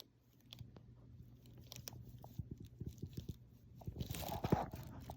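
A person chewing and biting food close to the microphone: irregular soft crunches, louder and denser about four seconds in.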